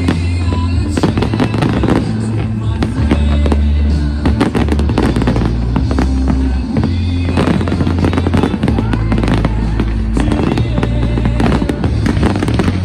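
Fireworks display: a dense run of bangs and crackling from aerial shells, over loud music with a deep, steady bass.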